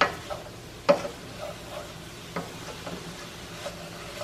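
Shredded cabbage and sausage sizzling in a stainless steel skillet while a spoon stirs through it. There are two sharp knocks of the spoon against the pan, one at the start and one about a second in, and a few lighter clicks after.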